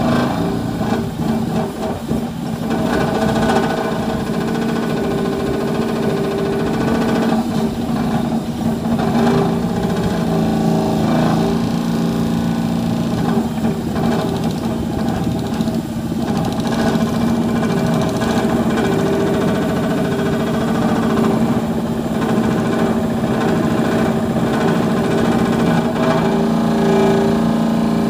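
Excavator-mounted vibratory pile driver shaking a timber house pile into the ground: a steady, even drone over the excavator's diesel engine, with no separate hammer blows.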